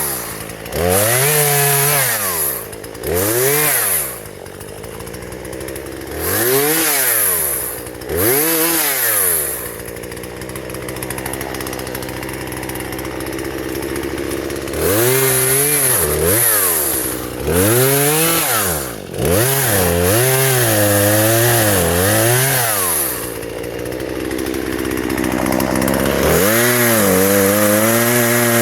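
Husqvarna 120 two-stroke chainsaw revving in repeated short throttle bursts that rise and fall in pitch, dropping back to idle for several seconds in the middle, then held at high revs near the end.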